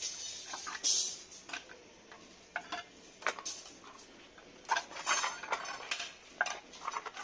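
Steel rebar clinking and scraping against the steel pins of a wooden bending jig as it is bent by hand into stirrups with a bending bar. The clinks come irregularly, with quiet gaps between them.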